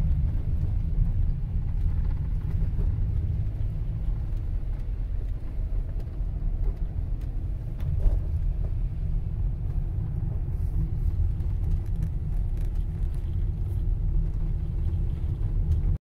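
A car driving, heard from inside the cabin: a steady low rumble of road and engine noise. A short knock about eight seconds in.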